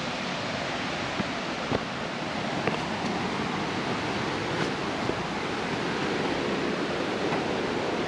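Steady rush of a waterfall heard through the forest, an even roar of falling water with a few faint light clicks.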